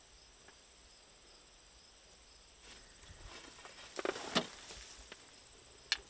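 Quiet field ambience with a few soft rustles and clicks, a short cluster about four seconds in and one sharp click near the end, over a faint steady high hiss.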